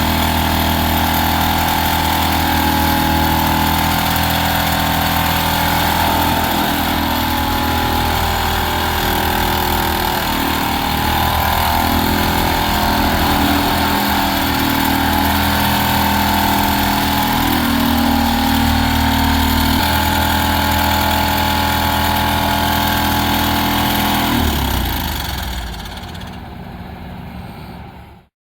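Excavator-mounted hydraulic side grip vibratory pile driver at work: a loud, steady machine drone over the excavator's engine. It drops away sharply near the end, runs on quieter for a few seconds, then cuts off.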